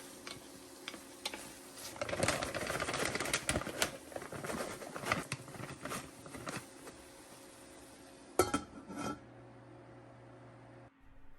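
Kitchen clatter: dishes and utensils being handled. Scattered clicks are followed by a busy stretch of clinking and rattling, then a few sharp knocks near the end.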